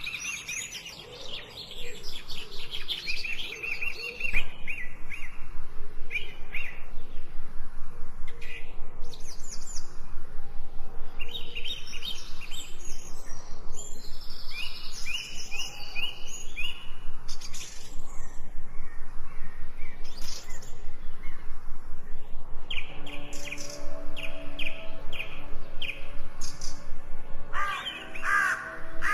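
Songbirds chirping and singing, with many short, quickly repeated calls and trills. A soft, sustained musical drone of low held notes joins near the end.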